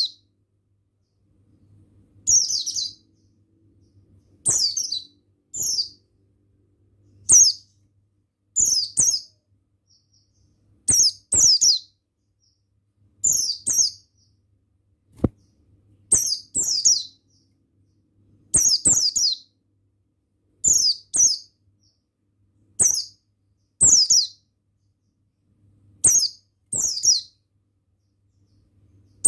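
Oriental white-eye (Javan buxtoni form) giving short, high-pitched chirping phrases of two or three quickly falling notes, repeated about every one to two seconds.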